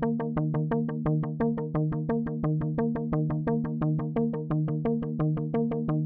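Background synthesizer music: quick, evenly repeating notes, about six or seven a second, over a held low chord.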